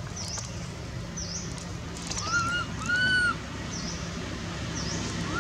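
Two short, arching animal calls about two and three seconds in, the second longer and louder, over a faint high chirp repeating roughly once a second and a steady low hum.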